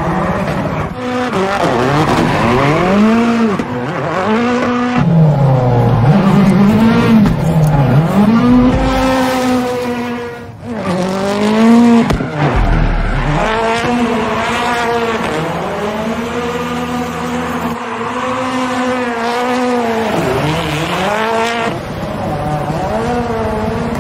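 Rally car engine revving hard up and down again and again as it is driven, with tire squeal. The pitch swings every second or two, with a short drop about ten seconds in.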